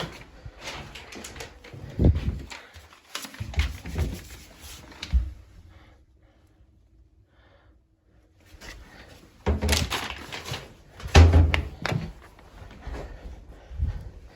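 Several thumps and knocks in a small room, with a quiet stretch of about two seconds in the middle; the loudest come about two seconds in and again a little past the middle.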